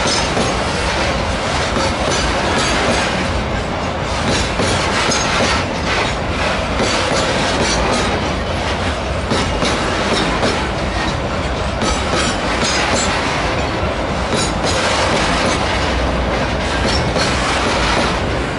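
Covered cement hopper wagons of a freight train rolling past close by: a steady rumble of wheels on rail, with irregular clicks and clacks as the wheels pass over the track.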